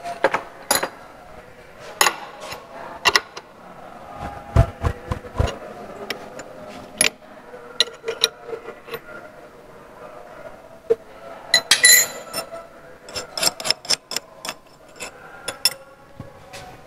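Sharp metallic clinks and knocks as a steel workpiece and the machine vise on a milling machine are handled by hand, with a louder ringing metal clatter about twelve seconds in. A faint steady hum runs beneath.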